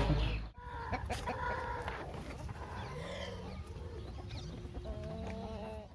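A flock of country chickens clucking, with scattered short calls of varying pitch.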